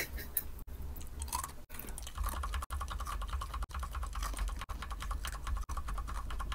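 Rapid typing on a computer keyboard: a fast, even clatter of keystrokes that starts about two seconds in, fainter before that.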